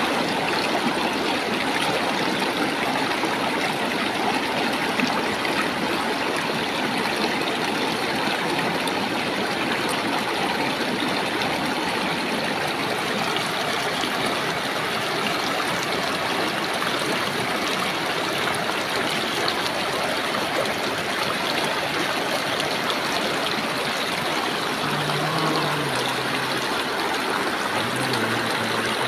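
Shallow, rocky river running fast over stones: a steady, unbroken rush of water.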